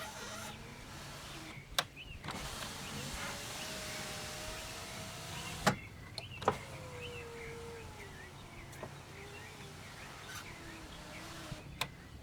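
Power window motor in a 2010 Jeep Patriot door running with a whine that rises in pitch. It stops with a clunk about halfway through, then runs again with a falling whine. This is a function test after the door panel has been refitted.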